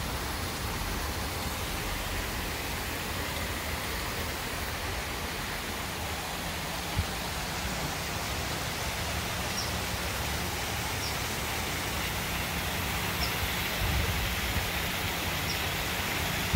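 Steady rushing outdoor noise with a low rumble underneath, and a few faint, short high chirps in the second half.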